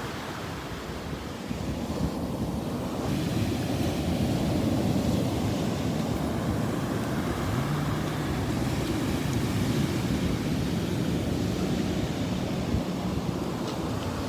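Ocean surf washing onto a beach: a steady rush of waves that swells about two seconds in and then holds.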